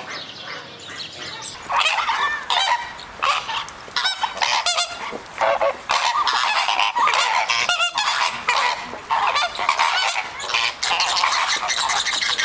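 A flock of flamingos calling: many goose-like honks overlapping in a dense, loud chatter. It is quieter for the first second or so, then the calling becomes loud and continuous.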